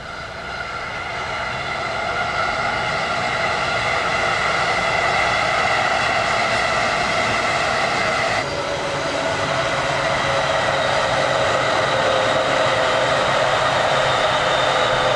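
Electric commuter trains passing close by, a 205 series among them: a steady whine of several tones over the rush of wheels on rail, growing louder over the first few seconds. The tones shift abruptly about eight seconds in, as a second train comes by.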